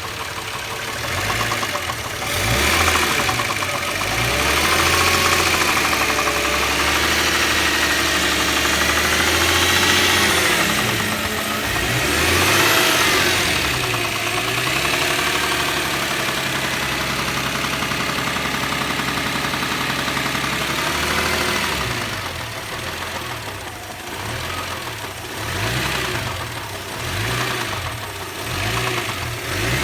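Subaru EZ30 flat-six engine running and being revved up and down several times, with a knock from a spun bearing shell. It holds steadier revs in the middle and drops lower near the end.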